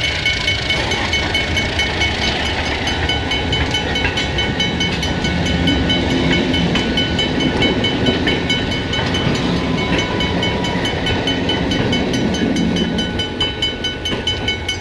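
Freight train rolling through a grade crossing: tank cars clatter past, then the Ontario Southland Railway diesel locomotives pass at the rear with their engines running, from about five seconds in. A crossing-signal bell rings steadily throughout.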